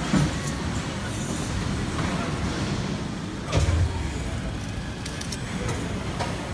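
Automated high-speed plastic cutlery production line running: injection molding machine and robotic take-out and stacking equipment giving a steady low mechanical rumble, with a heavier low surge at the start and again about three and a half seconds in, and several sharp clicks near the end.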